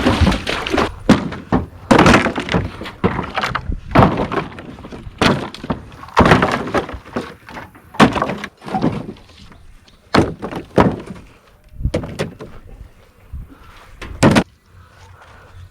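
Wooden boards of an old fish house being torn down: irregular heavy thumps, knocks and cracks, one or two every second or so, some ringing briefly.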